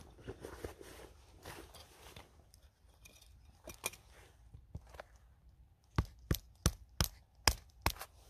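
Hatchet splitting a small stick of kindling on a wooden chopping block: quiet handling and scuffing at first, then from about six seconds in a regular run of sharp wooden knocks, roughly three a second.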